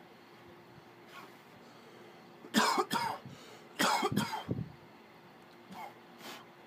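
A man coughing hard after a hit from a cannabis joint. It comes in two fits of several harsh coughs, about two and a half and four seconds in, then two lighter coughs near the end.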